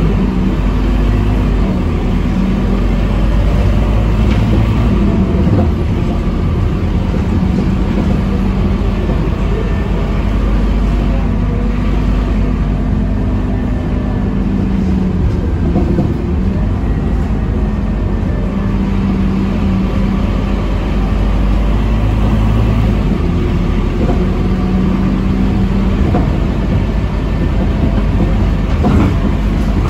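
Scania K230UB city bus heard from inside the passenger cabin while driving: its five-cylinder diesel engine running under the floor with a steady rumble of road and drivetrain noise, the engine note rising and falling as the bus speeds up and eases off.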